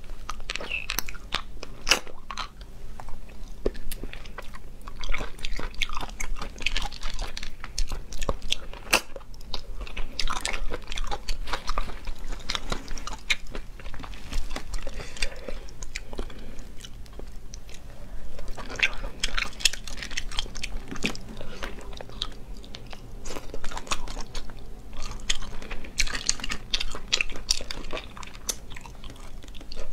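Close-miked eating of sea snails in the shell: wet sucking and chewing as the meat is drawn out, with many short sharp clicks of shell and teeth.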